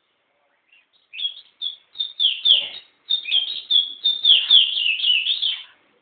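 Caged pet songbird singing: a fast run of short, clear notes, each dropping in pitch. It starts about a second in and comes as two phrases with a brief break near the middle.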